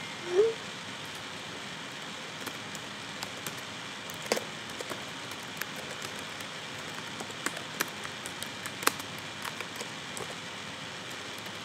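Irregular keystrokes of someone typing on a computer keyboard, scattered soft clicks over a steady hiss. A short, low rising sound about half a second in is the loudest moment.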